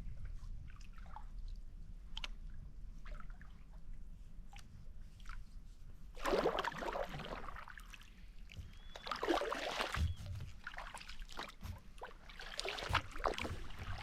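Kayak paddle strokes splashing and sloshing in the lake water, three strokes a few seconds apart, with light drips and trickles from the paddle blade between them.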